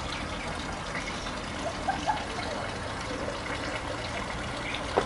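Steady outdoor background hiss with a low hum, and a few light clicks from plates and glasses being handled on a table, twice around two seconds in and once near the end.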